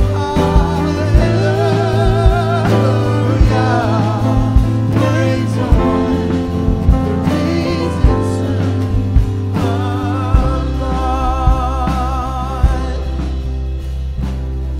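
Live church worship band playing: a singer over bass and a steady drum beat.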